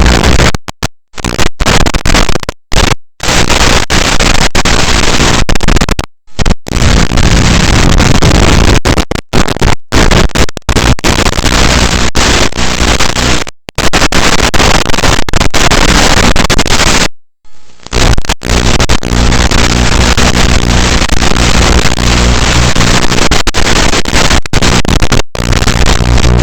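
Loud hissing static on an FPV drone's raw video recording, cutting out suddenly to silence several times for a fraction of a second, with a faint low motor hum under it near the end.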